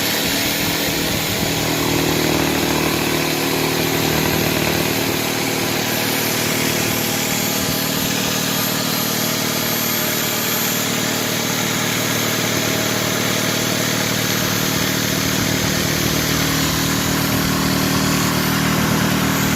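A motor-driven machine running steadily at constant speed, starting abruptly.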